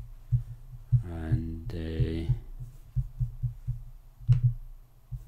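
Soft, irregular low thumps and one sharper click about four seconds in, typical of typing and clicking at a computer keyboard, with a single drawn-out spoken word, 'and', about a second in.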